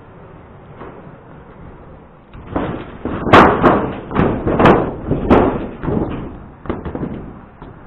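Footsteps on a sheet-metal roof: a run of heavy thuds, about two a second, starting a couple of seconds in and thinning out near the end.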